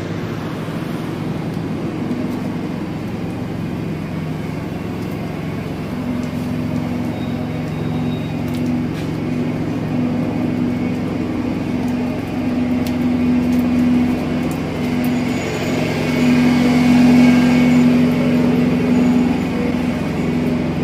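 Idling diesel truck engines: a steady low hum with two held low tones that grows louder toward the end.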